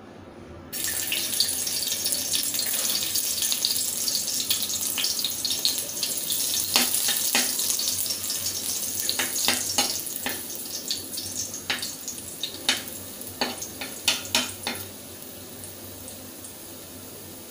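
Chopped garlic sizzling in hot oil in a kadai, starting with a sudden hiss about a second in. From the middle on, a metal slotted spoon stirring it clicks and scrapes against the pan again and again, while the sizzle slowly dies down.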